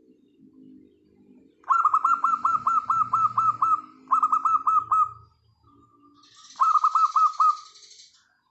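Zebra doves cooing: soft low coos, broken by three loud runs of quick, repeated falling notes about two, four and six and a half seconds in.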